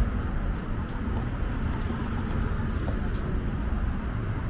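Steady city street noise: traffic rumbling by.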